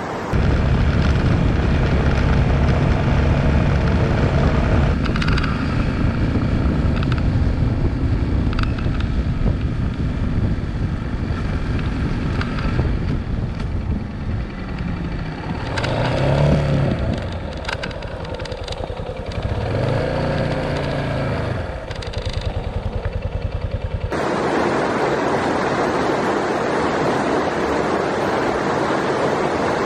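Wood fire burning, crackling over a low rumble. About 24 seconds in, this gives way to the steady rush of a river.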